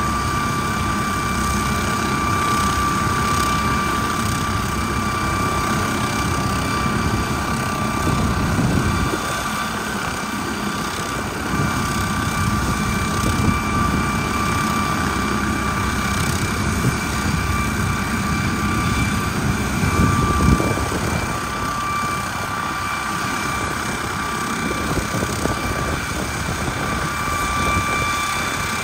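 MD900 Explorer helicopter's twin turboshaft engines and rotor running steadily, a constant high turbine whine over a rushing rotor noise, with the deeper rush swelling briefly twice.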